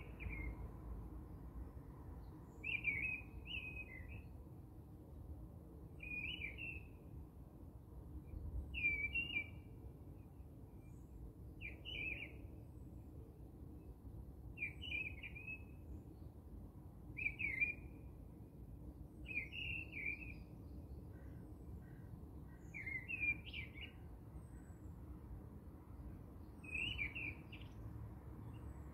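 A bird chirping short, quick phrases, repeated about every two to three seconds.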